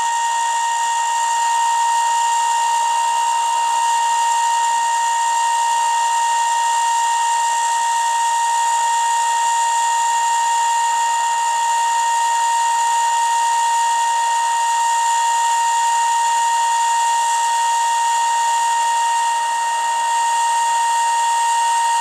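Steady test tone with hiss from a TTI multinorm CB radio's receiver playing through a speaker. The radio is demodulating an AM-modulated signal from a signal generator while its receiver coils are tuned for maximum recovered audio.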